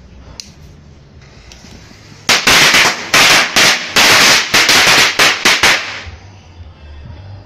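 A small pack of firecrackers going off on a concrete floor: a quiet hiss for about two seconds, then a rapid crackling run of loud bangs lasting about four seconds, tailing off into a few scattered pops.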